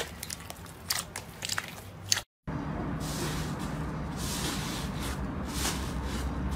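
Slime being squeezed and pressed by hand close to the microphone, with crisp crackling and popping clicks. About two seconds in it cuts off briefly, and a denser, steadier squishing crackle follows.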